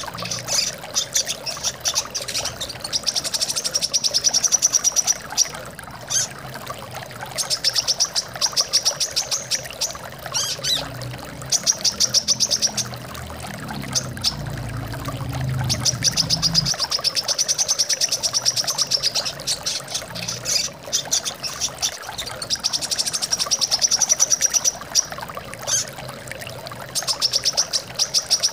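Brown-throated sunbird singing rapid high twittering trills in bursts of a second or two, repeated again and again, over the sound of running water. The water deepens into a low rumble for a few seconds around the middle.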